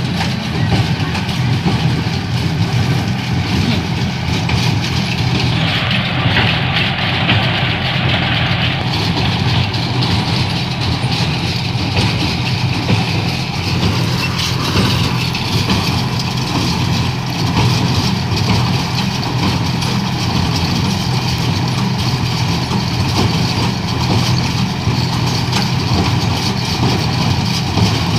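Engine running steadily at an even low pitch, with a hiss rising over it for a few seconds about six seconds in.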